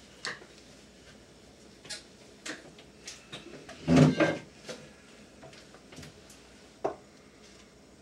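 Light clicks and taps of a plastic soda bottle and a glue caulking tube being handled as a bead of adhesive is run inside the bottle, with a louder cluster of knocks and rustling plastic about four seconds in.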